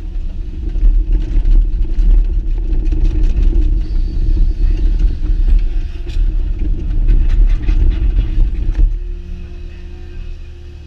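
Excavator diesel engine running under hydraulic load as the boom swings and the bucket and thumb set down a log, with scattered sharp clicks and knocks. About nine seconds in, the load eases and the sound drops to a quieter, steadier engine hum.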